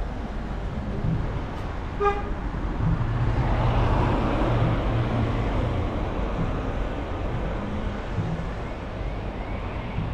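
Street traffic: a short horn toot about two seconds in, then a vehicle passing close, swelling and fading over a couple of seconds.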